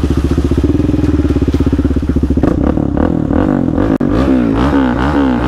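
Dirt bike engine running at a steady speed with even firing pulses as the bike rides out of shallow floodwater. Around halfway the sound turns rougher, and about four seconds in it breaks off for an instant before a wavering, repeating pattern follows.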